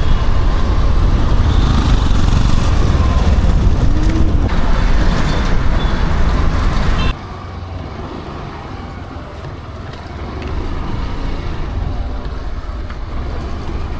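Steady road-traffic or vehicle noise, loud at first and then dropping suddenly to a much quieter rumble about halfway through.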